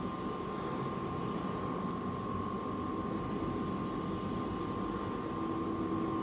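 Hydraulic hose crimping machine's motor and pump running steadily with a constant high whine; a lower hum joins about five seconds in.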